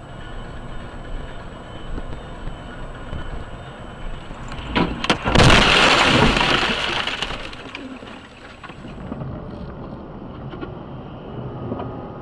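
Car crash heard from inside the cabin: steady road noise, then about five seconds in a couple of sharp knocks and a loud crash as the windshield shatters, with a crunching hiss of breaking glass lasting about two seconds. Steady road noise follows.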